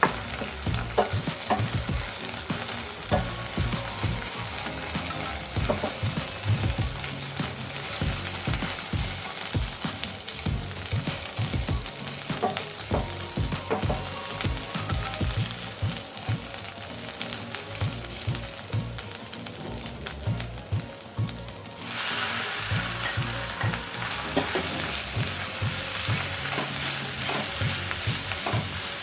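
Food sizzling as it fries in a pan, stirred with a spoon or spatula that knocks and scrapes against the pan again and again. About two-thirds of the way through, the sizzle turns suddenly louder and brighter.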